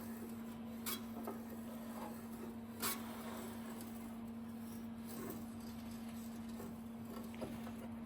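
Faint steady hum with a few light, sharp clicks or taps of metal.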